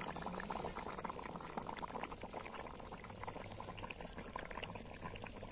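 Egg curry boiling in a large metal pan, a steady fizz of many small bubbling pops.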